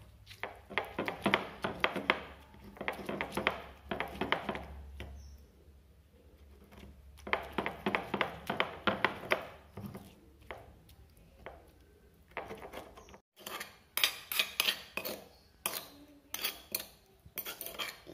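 Stone pestle (ulekan) grinding chillies, tomatoes and shrimp paste into sambal terasi in a small stone mortar (cobek): bursts of quick rubbing and knocking strokes, stone on stone, with short pauses between. Near the end, sharper clinks of a metal spoon scraping against the stone bowl.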